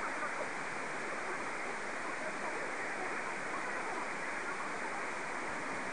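Steady shortwave static hiss from a Perseus SDR tuned to a weak AM pirate signal on the 90 m band. The hiss is narrow and dull, with no treble above about 2.5 kHz.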